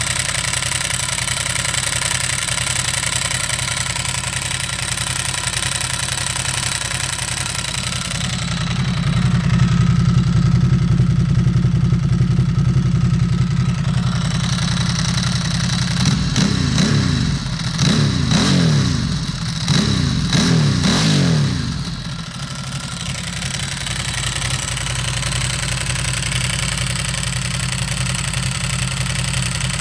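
Ducati Hypermotard 1100S air-cooled L-twin idling through a Termignoni carbon fiber slip-on exhaust, with the rattle of its dry clutch. Partway through it runs louder and deeper for several seconds, then the throttle is blipped several times, each rev rising and falling, before it settles back to idle with the clutch rattle.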